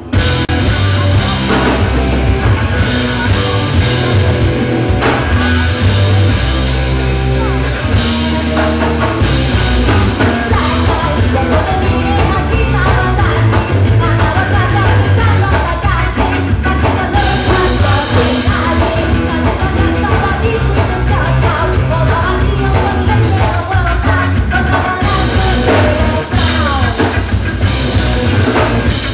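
Ska-punk band playing live at full volume, with drums, electric guitar, bass and a singer. The song kicks in all at once at the start.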